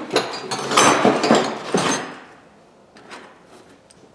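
Loose metal wrenches and sockets clattering and clinking together as they are picked out of a box of tools, busy for about two seconds, then one faint knock.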